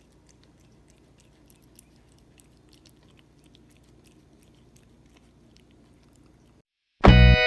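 A cat chewing food, faint, with scattered small crunches and clicks. The chewing stops abruptly near the end, and loud guitar music starts straight after.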